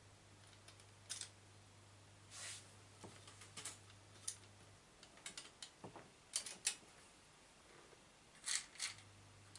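Quiet, scattered clicks and clinks of small metal parts and a hand tool being handled during assembly, with a short rattle of parts in a plastic organizer box near the end.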